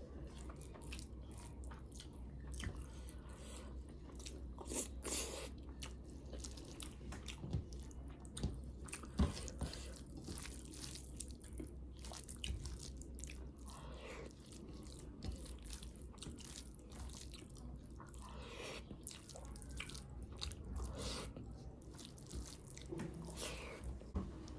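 Close-miked eating: wet chewing and mouth smacks of kadhi and rice, as many short, irregular clicks and squelches over a faint steady low hum.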